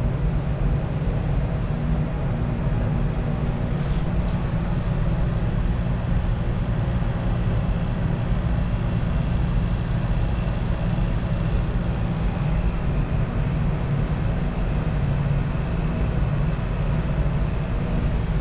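Steady low drone of lab machinery running, the vacuum pump and the fume hood's exhaust fan, with a couple of faint clicks about two and four seconds in.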